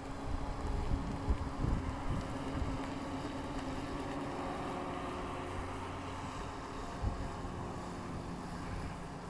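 Wind buffeting the microphone, gusting most in the first few seconds, over the faint steady running of a distant electric RC speedboat's motor out on the water.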